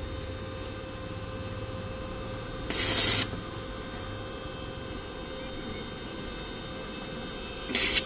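Steady machine hum with a constant tone, broken by two short bursts of hiss, one about three seconds in and one near the end.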